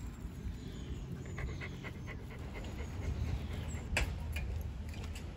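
A corgi panting close by, with a single sharp click about four seconds in.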